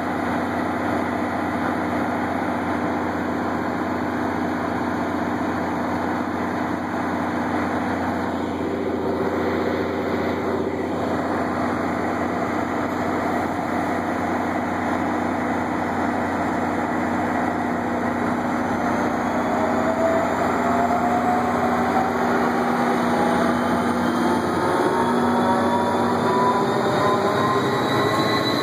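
EMD GP40PH-2B diesel locomotive with an EMD 645 engine, running steadily at the rear of a push-pull commuter train. About two-thirds of the way in it throttles up and whines start climbing steadily in pitch as the train accelerates away.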